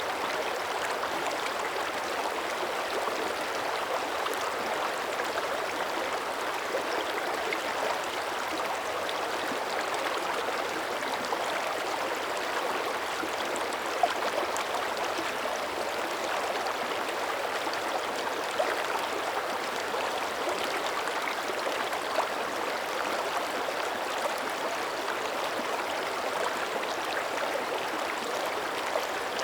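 Shallow mountain creek running steadily over rocks, a continuous babbling with small splashes and drips.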